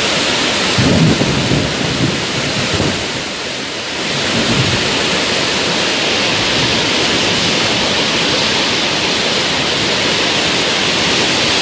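Swollen, fast-flowing river water rushing steadily after heavy rain, with a few low rumbles in the first few seconds.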